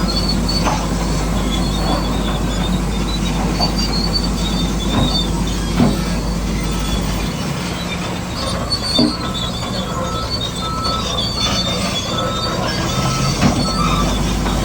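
Bulldozer at work, its steel tracks squealing and clanking over a steady mechanical whir, with a few sharp knocks of rock. A low drone stops about halfway through and comes back near the end.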